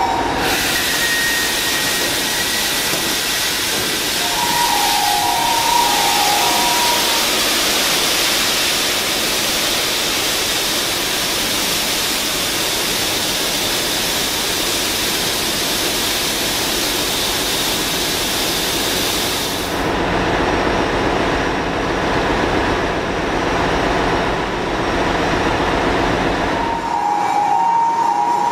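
Loud, steady engine-room noise from a ship's main diesel engine and its machinery: a rushing hiss that turns duller and lower about 20 seconds in. A short repeated two-tone electronic beep sounds a few seconds in and again near the end.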